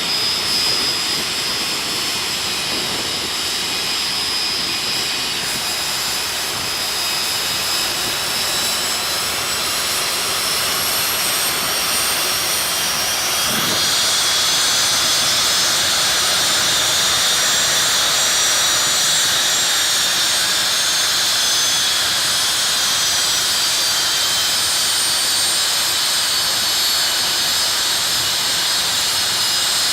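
Jet engine of a jet-powered truck running with a steady rushing noise and a high turbine whine, which climbs in pitch and gets a little louder about halfway through.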